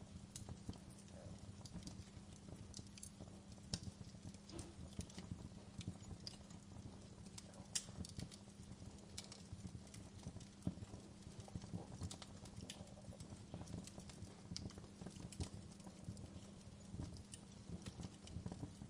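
Fire crackling: irregular sharp pops and snaps, a few louder than the rest, over a steady low rumble.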